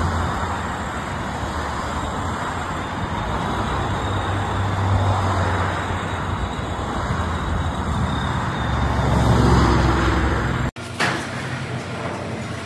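Steady rushing noise of road traffic on a nearby highway, swelling once as a vehicle passes; it cuts off abruptly near the end to quieter indoor sound.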